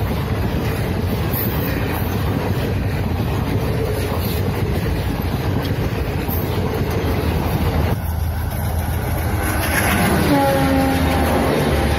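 Passenger train coaches rolling past at speed, a steady rumble and clatter of wheels on the rails. About eight seconds in the sound cuts to a diesel locomotive coming by, louder, with a note that dips slightly in pitch.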